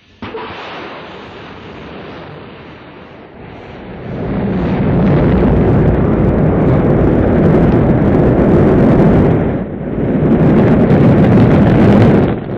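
Space Shuttle launch noise: the deep, dense rumble of the solid rocket boosters and main engines. It starts suddenly, becomes much louder about four seconds in, and dips briefly twice near the end.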